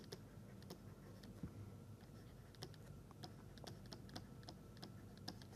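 Near silence with faint, irregular light clicks and taps from a pen or stylus writing on a tablet, over a low steady hum.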